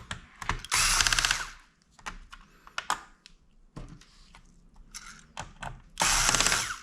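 Electric screwdriver running in two bursts of about a second each, one about a second in and one near the end, as it backs out two small screws from a laptop's case. Light clicks and taps of handling the screws and parts in between.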